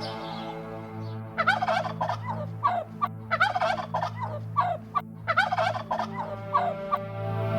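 A bird calling in three rapid, gabbling bursts, each about a second and a half long, over steady background music.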